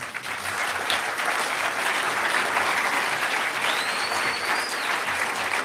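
Audience applauding, starting suddenly and running on steadily, with a brief high whistle about four seconds in.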